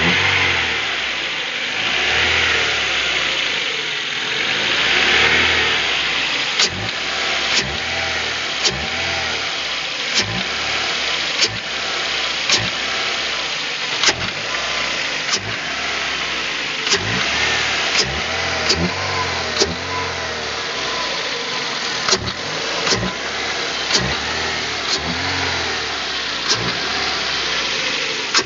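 Ford Fusion 1.4 engine running with the throttle blipped repeatedly, its pitch rising and falling, while sharp short knocks come through about once every second or so: an extraneous noise from the car.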